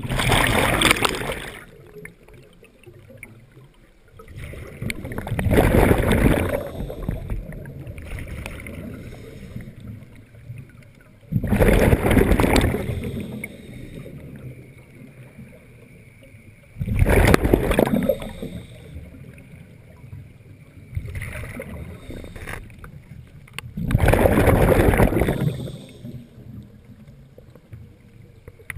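Scuba diver breathing through a regulator underwater: five loud bubbling exhalations, each lasting a second or two, come about every six seconds, with quieter sounds between them.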